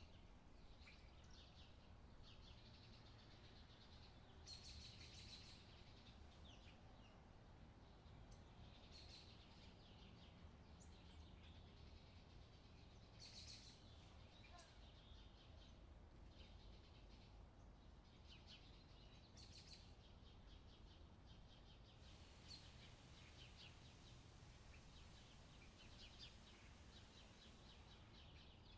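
Faint outdoor ambience: small birds chirping on and off in short clusters over a steady low background rumble.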